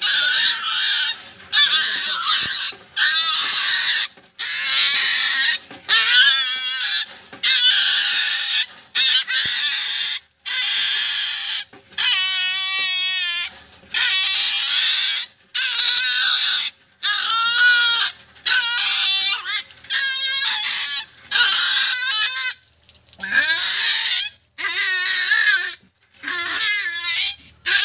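Black puppy screaming and yelping while held under a hand pump's running water for a bath. It gives high-pitched, wavering squeals about once a second.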